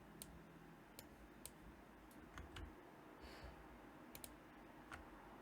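A few faint, scattered computer mouse clicks over near-silent room tone.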